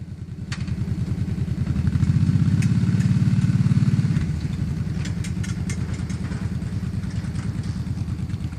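A motor vehicle engine running at idle. It gets louder about two seconds in and settles back a couple of seconds later, with a few light clicks over it.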